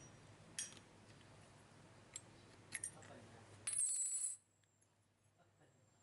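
A few light clicks, then a brief bright metallic clatter with a ringing edge about four seconds in, from small metal parts being handled. After the clatter the background drops away abruptly.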